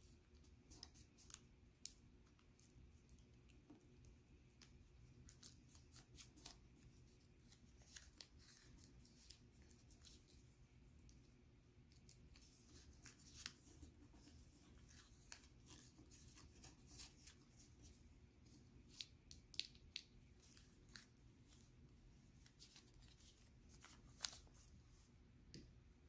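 Faint crinkles and light clicks of folded origami paper being pressed flat and handled, scattered irregularly throughout.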